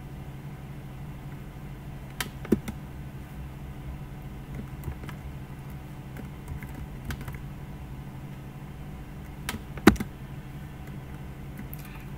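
A few scattered computer-keyboard keystrokes, single clicks with the loudest about two and a half seconds in and again a couple of seconds before the end, over a steady low hum.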